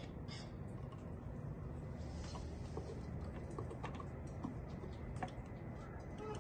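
Faint, irregular light clicks and taps, a few at a time, over a steady low hum.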